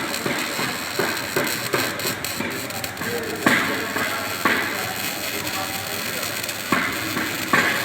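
Music with a voice, with several sharp knocks at irregular intervals, the loudest about three and a half seconds in.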